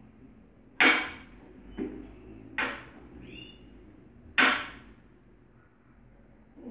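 Four sharp knocks of a kitchen utensil against a dish or container, each with a short ring; the loudest come about a second in and near the middle.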